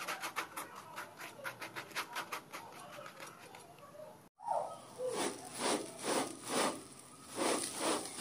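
Silicone pastry brush sweeping quickly back and forth over the browned, crusty top of a pan-cooked loaf, many short scratchy strokes. After a brief break, slower rubbing strokes of hands over the crust, about two a second.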